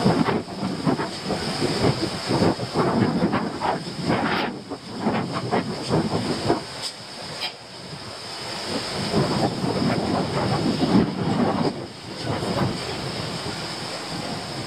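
Wind buffeting an outdoor microphone, an irregular rumbling noise that swells and fades in gusts, with a few short knocks.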